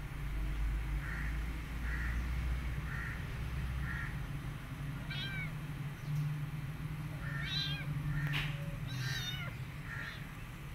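Kitten mewing: four short, high mews about a second apart, then several longer, wavering meows in the second half.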